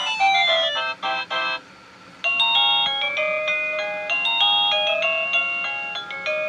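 Satu Brown wireless doorbell chime playing its built-in electronic tunes: a quick melody stops about one and a half seconds in, and after a short pause a slower tune of longer held notes starts.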